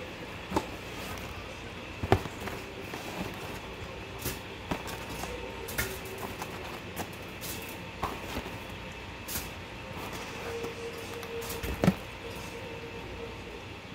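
Cardboard box of frozen taquitos being opened and handled on a wooden table: scattered rustles and crinkles of cardboard and packaging, with a few sharp knocks, the loudest about two seconds in and near the end, over a steady background hum.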